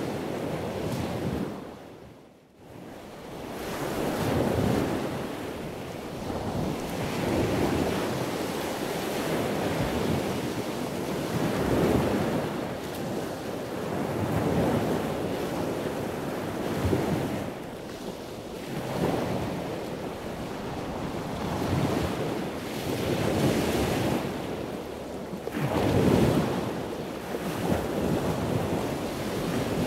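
Wind buffeting the microphone over the wash of the open sea, swelling and easing every few seconds, with a brief drop about two seconds in.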